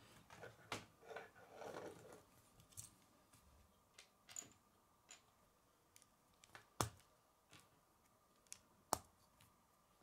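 K'nex plastic rods and connectors being handled: a rustle and clatter of plastic parts in the first two seconds, then scattered sharp clicks, the loudest two about seven and nine seconds in.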